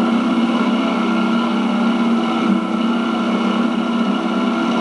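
A boat motor running steadily at speed as a flat-bottomed boat pushes across open water: an even, unbroken drone.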